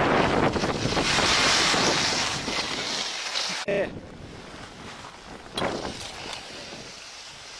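Wind noise on the microphone with the hiss of sliding over snow during a downhill run, cutting off abruptly a little past halfway. After the cut, a quieter outdoor hiss with a brief pitched sound and, about two seconds later, a short knock.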